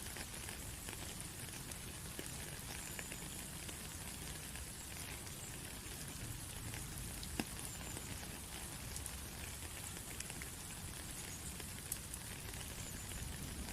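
Steady rain falling, with many individual drops ticking and one sharper drop hit about halfway through.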